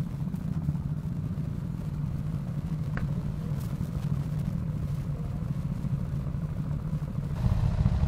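Bajaj Pulsar NS160's single-cylinder engine running steadily at low revs, with other motorcycles around it, as a low even rumble that grows a little louder near the end.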